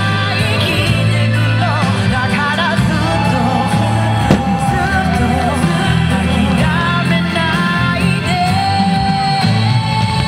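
A pop or rock song with a singer, running steadily. One sharp bang about four seconds in, a firework shell bursting.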